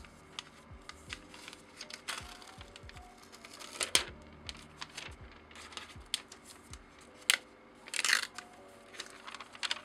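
Protective paper wrap being handled and peeled off an iPad Air 5: rustling and crinkling with sharp clicks, two loud clicks about four and seven seconds in, and a longer tearing rustle about eight seconds in. Soft background music plays underneath.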